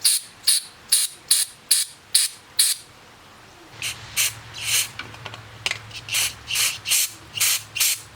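Aerosol carburetor cleaner sprayed into a lawnmower carburetor's main jet in short, quick hissing bursts, about two or three a second. A run of bursts, a pause of about a second, then another run.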